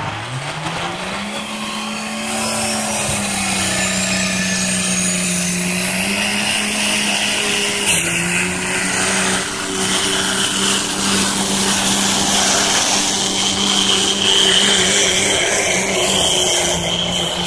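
Diesel pulling pickup truck's engine at full throttle dragging a weight-transfer sled: a steady, loud engine note that climbs in the first second, then holds, dipping slightly about eight seconds in, with a thin high whine rising over the first few seconds.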